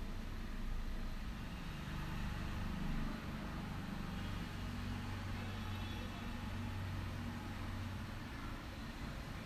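A low, steady drone like a motor or engine running.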